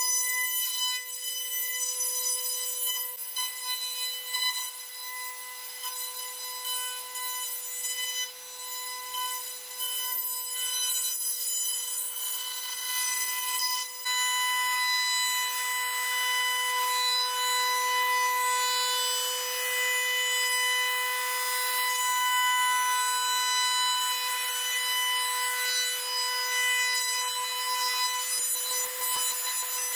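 CNC router spindle whining steadily at a high pitch while its router bit cuts along the edge of a solid-wood box lid. The cutting noise grows heavier about halfway through.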